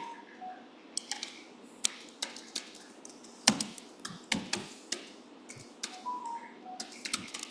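Irregular clicks and taps of a computer keyboard and mouse as a web search is typed in and entered, some keystrokes coming in quick little runs.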